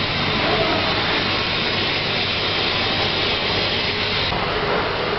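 Platform lift running: a steady mechanical drone with a low hum.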